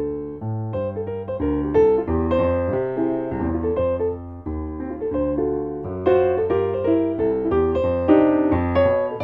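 Background piano music, a steady run of chords and melody notes.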